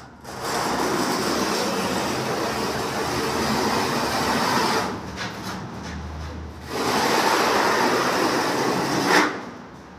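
Rough, continuous scraping of gritty material being worked across a wire-mesh screen, in two long stretches with a short lull between them.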